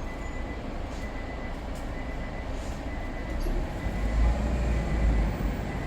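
A car engine running steadily while the air conditioning is being recharged with refrigerant, with a thin steady high tone over it. The low rumble grows louder about three and a half seconds in.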